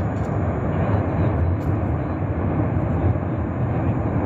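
Cumbre Vieja volcano erupting: a continuous deep roar, steady and unbroken.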